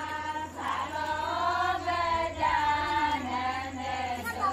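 A group of women singing a traditional Rajasthani wedding folk song (geet) together, in long held, gently gliding notes.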